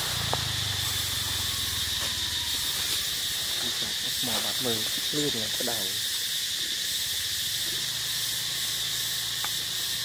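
Steady high-pitched drone of insects in the forest, with a brief run of short pitched calls about four to six seconds in.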